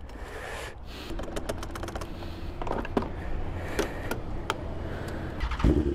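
A run of small sharp clicks and knocks from handling at the fuel pump and bike, then a motorcycle engine starts about five and a half seconds in and keeps running.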